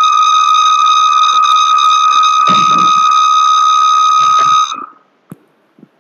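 Loud, steady high-pitched whistle of audio feedback from a video call's microphone picking up its own speakers. It holds one pitch with overtones and cuts off suddenly near the end, once the microphone has been muted.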